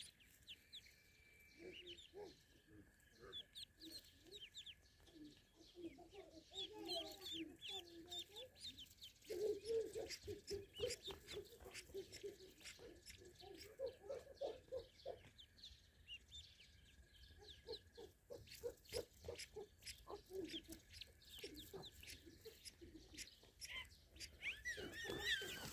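A flock of ducklings calling: many short high peeps mixed with lower clucking calls, with a livelier flurry near the end.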